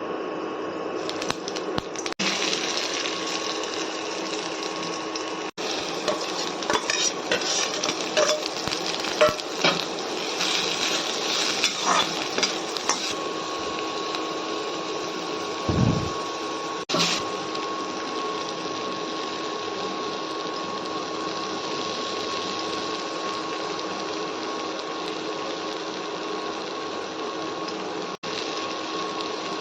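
Kitchen cooking sounds: a steady hum runs throughout. About six to thirteen seconds in, crackling sizzle and clinks of utensils on a pan sit on top of it. The sound breaks off abruptly at several edit cuts.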